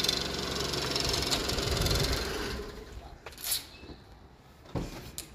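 Nissan kei car's small engine idling, then falling silent about three seconds in, followed by a few short clicks.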